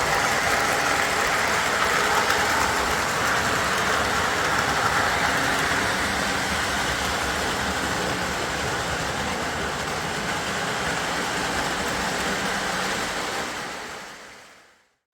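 O gauge model train running steadily on its track, a continuous rolling rumble of wheels and motor. It fades out to silence near the end.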